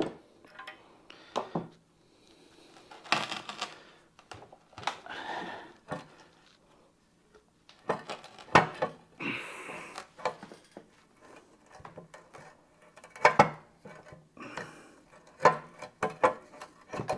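Irregular metal clinks and knocks, with short sliding sounds, as heavy axle hub parts are handled and worked apart.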